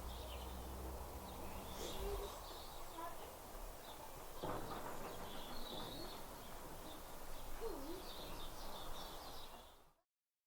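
Faint outdoor birdsong: scattered high chirps and a few low cooing calls over a soft background hiss, fading out near the end.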